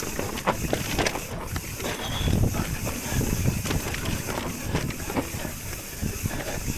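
Mountain bike descending a rough trail: tyres rolling over dirt and stones, with frequent knocks and rattles as it hits bumps, and steady wind rush on the microphone.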